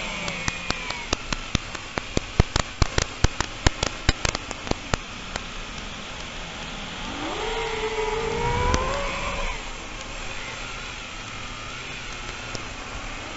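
A rapid, irregular run of sharp clicks over a steady hiss, then a motor-like whine that rises in pitch about seven seconds in and holds for about two seconds before fading.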